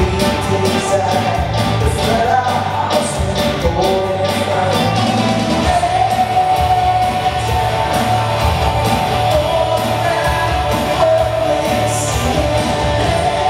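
Live worship band playing a song: sung vocals held over acoustic guitar, bass and a drum kit, with drum strokes clearest in the first few seconds.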